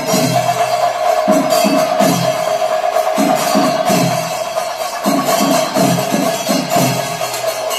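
Kerala temple percussion ensemble playing: drums beaten in repeated runs of three or four strokes with short breaks between, cymbals clashing, and a wind instrument holding one steady tone underneath.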